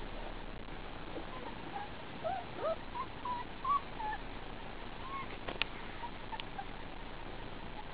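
29-day-old German Shepherd puppies giving short, high-pitched whimpers and squeaks, many in quick succession in the first half. Two sharp clicks come a little later, over a steady hiss.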